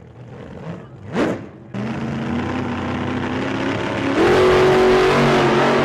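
A big truck engine running, then revving louder with its pitch climbing about four seconds in. A brief whoosh comes about a second in.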